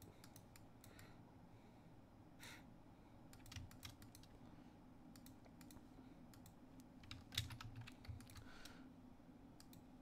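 Faint, irregular clicking of a computer keyboard and mouse, with a couple of louder clicks about three and a half and seven seconds in, over a faint low steady hum.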